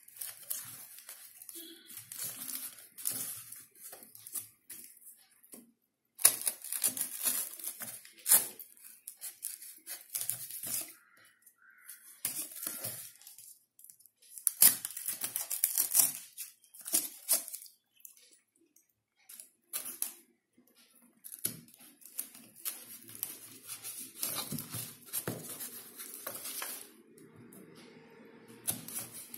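Back of a knife scraping and pressing through gold paper stuck on a cardboard tube to slit it open. Irregular spurts of scraping, paper tearing and crinkling with sharp clicks, broken by short pauses.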